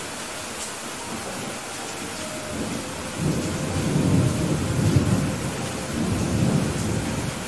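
Heavy rain falling steadily, with a rolling rumble of thunder that builds about three seconds in, peaks midway, swells once more and dies away near the end.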